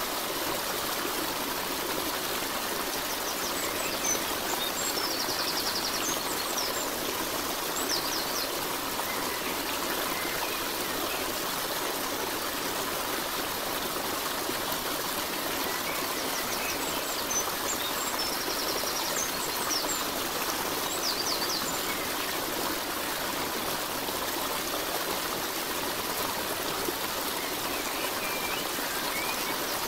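Steady flowing water of a stream, an even rushing sound. A few faint high chirps come through a few seconds in and again about two-thirds of the way through.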